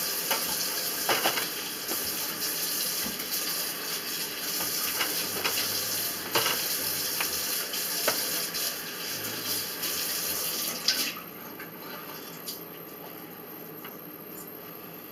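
A steady rush like running water, which cuts off suddenly about eleven seconds in, with a few light knocks along the way.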